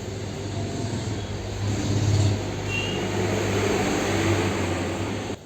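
Hot-air blower running steadily, a rushing of air over a low hum, as it heats the phone's side to soften the adhesive before opening; it cuts off just before the end.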